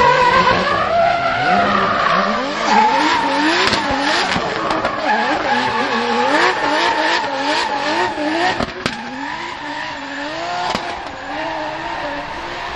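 BMW M3-bodied drift car sliding sideways: its engine revs up and down in quick surges about twice a second over the screech of spinning tyres. A few sharp cracks come through, the loudest about nine seconds in.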